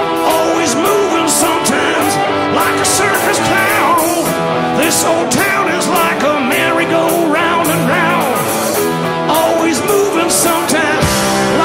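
Live rock band playing: electric guitars with a male lead vocal over a steady beat.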